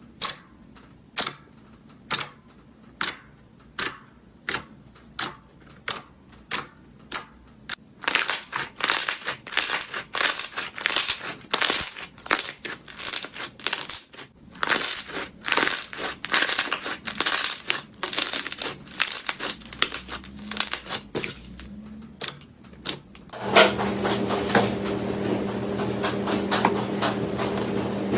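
Slime being pressed and squeezed by hand: sharp popping clicks about every 0.6 s, turning into dense crackling and crunching from about eight seconds in. Near the end a steady mechanical hum comes in.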